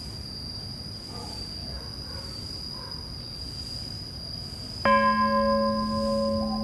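A temple bell struck once about five seconds in, ringing on with several sustained tones and a slow wavering hum. Under it, insects keep up a steady high-pitched drone with a soft pulse about once a second.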